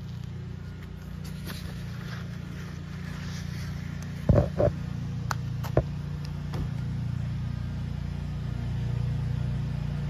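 A steady low machine hum, with two quick loud knocks about four and a half seconds in and a sharp click just before six seconds.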